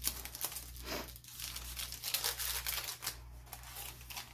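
Paper rustling and crinkling as paper frames and a glassine envelope are handled and tucked into a journal page, a string of short rustles.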